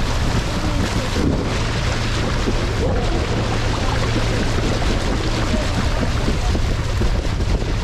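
Motorboat engine running with a steady low hum, under heavy wind buffeting on the microphone and water rushing past the hull as the boat moves.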